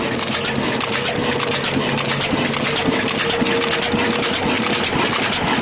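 Old stationary diesel engine running steadily, with a fast, even knocking beat.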